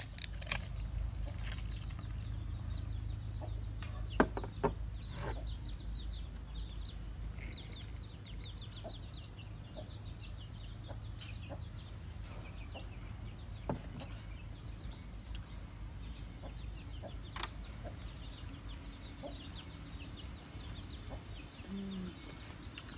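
Chickens clucking, with a quick run of short high calls through the first several seconds, then sparser, over scattered light clicks. A low rumble eases off about a third of the way through.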